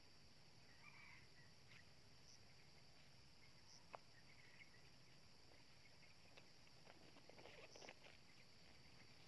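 Near silence: faint outdoor background with a steady high-pitched hum and a few faint distant chirps, one sharp click about four seconds in, and soft rustling near the end as a rooster is handled in a woven basket.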